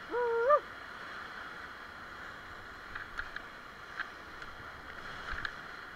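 Steady rush of whitewater around a paddle raft in a river rapid. It opens with a brief high shout lasting about half a second, and a few faint knocks come later.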